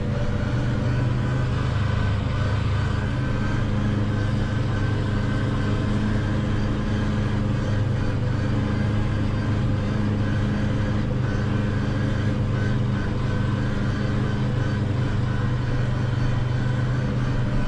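Valtra N 121 tractor running steadily under load while driving its mowers, heard from inside the cab as an even, unbroken drone.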